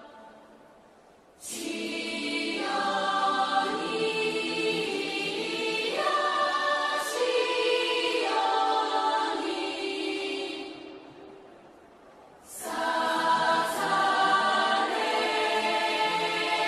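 Choral music: a choir sings long held chords. It starts after a short quiet, fades out about eleven seconds in, and comes back a second or so later.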